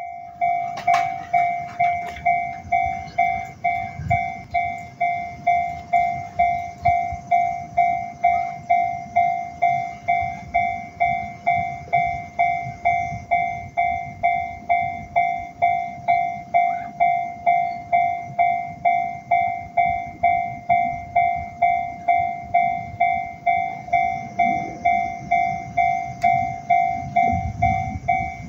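Japanese railway level-crossing warning bell ringing its electronic ding-ding steadily, just under two strikes a second: the crossing is active for an approaching train. A low rumble builds under it near the end.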